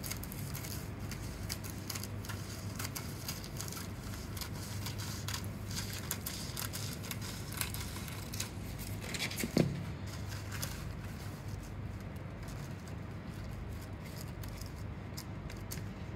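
Scissors snipping through a rhinestone transfer sheet, a run of short scattered snips and crinkles of the plastic sheet over a low steady hum. One brief louder sound comes about ten seconds in.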